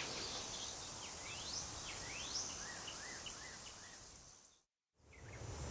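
Faint countryside ambience by a pond with a few small animal calls: two quick rising chirps, then a run of about five short repeated notes. The sound fades out to silence about four and a half seconds in.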